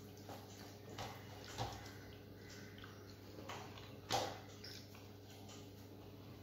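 Faint eating sounds: fingers mixing rice on a steel plate and wet chewing, a few small clicks and smacks with a sharper one about four seconds in, over a steady low hum.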